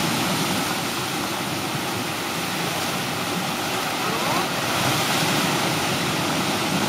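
Small waves breaking and washing up a pebbly beach, a steady rushing surf noise.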